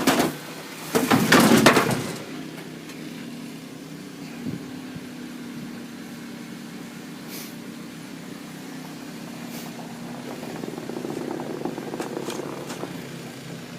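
Car engine running steadily with a low hum, with a loud, noisy rush lasting about a second, about a second in.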